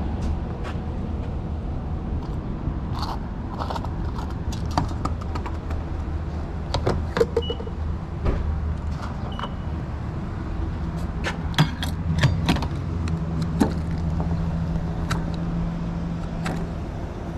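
Gas pump being worked: scattered clicks and knocks of handling, and two short, high electronic beeps from the pump's keypad about seven and nine seconds in, over a steady low hum. A second, higher hum joins about eleven seconds in.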